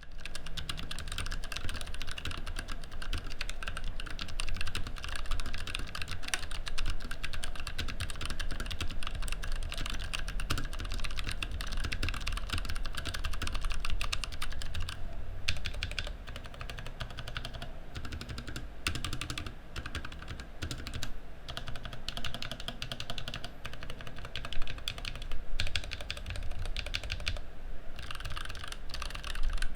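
Rapid, continuous typing on a low-profile mechanical keyboard with tactile low-profile Outemu brown switches, with several brief pauses between runs of keystrokes.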